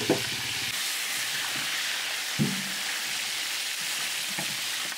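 Pieces of pangas fish deep-frying in a large steel pan of oil, a steady sizzle. Two short metallic knocks of a long-handled ladle against the pan or platter, the louder one about halfway through.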